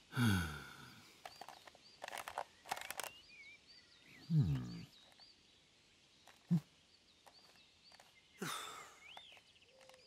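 Woodland ambience of small birds chirping in short repeated calls. Three short, louder low sounds that fall in pitch break in about four seconds apart.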